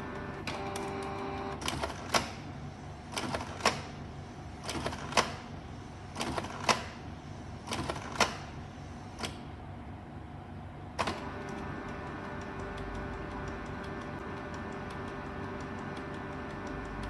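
Canon Pixma G2010 inkjet printer running a print-head cleaning cycle. Its mechanism clicks and clunks sharply, mostly in pairs about every second and a half, for several seconds, with one last click about eleven seconds in. A steady motor hum runs before and after the clicks.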